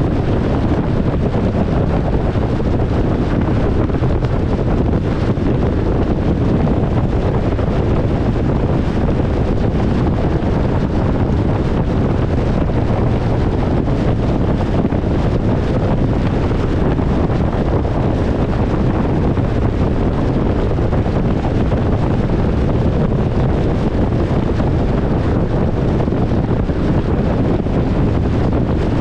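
Loud, steady wind noise buffeting the microphone: an even low rush with no breaks.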